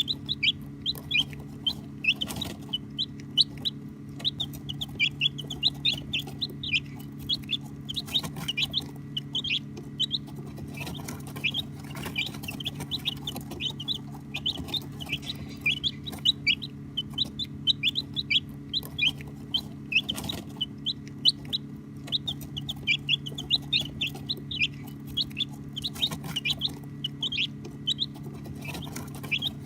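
A group of baby chicks peeping continuously, a dense stream of short high chirps that each fall in pitch, several a second, over a steady low hum.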